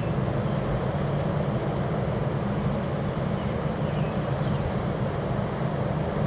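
Strong wind buffeting the microphone: a steady low rumble with a rush of noise over it.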